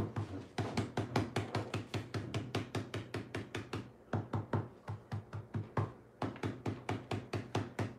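Stencil brushes dabbing paint through stencils onto thick card stock: rapid light taps, about five or six a second, with brief pauses around four and six seconds in.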